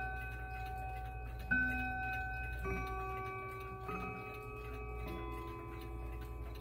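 Howard Miller 612-365 triple chime mantel clock playing its chime melody: notes struck roughly once a second, each ringing on under the next, over the steady ticking of the clock.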